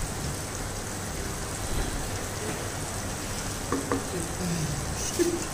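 Chana dal and chicken frying in oil in a pot, sizzling steadily while stirred with a wooden spatula: the bhuna stage, where the dal is fried in the masala.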